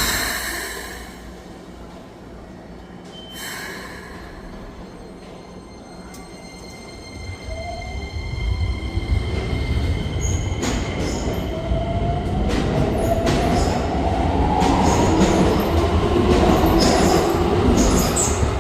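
Keikyu 1000-series electric train releasing its air brakes with a hiss, and another short hiss a few seconds later. Then it pulls away: a motor whine rises in pitch as it accelerates, over a growing rumble and clatter of wheels on the rail joints.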